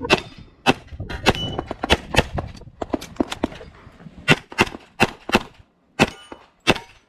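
Rapid pistol fire from an STI 2011 in .40 S&W during an IPSC stage: a string of sharp shots, mostly in quick pairs about a third of a second apart, with short pauses between pairs.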